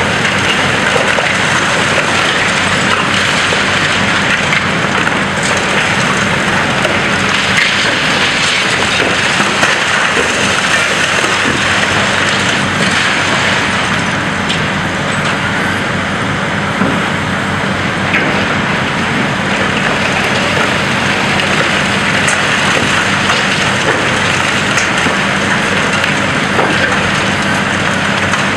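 High-reach demolition excavator crunching through a concrete building: a steady, dense crackle of breaking concrete and trickling rubble over the low hum of the machine's diesel engine.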